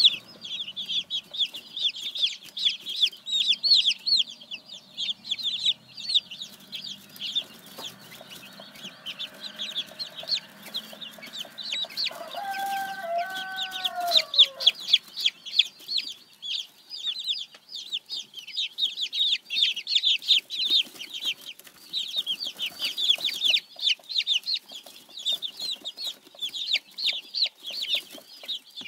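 A brood of Silkie chicks peeping continuously: rapid, high-pitched cheeps from several birds at once, overlapping without pause.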